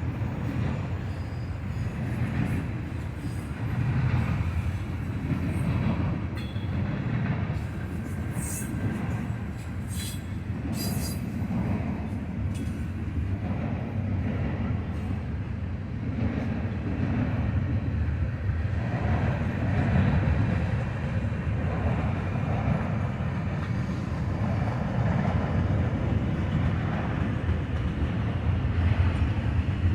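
Steady low mechanical rumble, like a vehicle running, with a few light clicks about a third of the way in.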